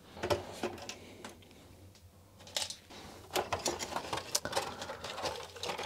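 Scattered light clicks and knocks of a Commodore 64's plastic case and keyboard being handled and turned over on a bench. The clicks come thicker from about halfway through.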